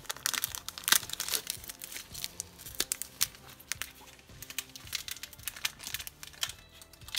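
A hockey card pack's wrapper crinkling and tearing as it is worked open by hand, a quick irregular run of sharp crackles.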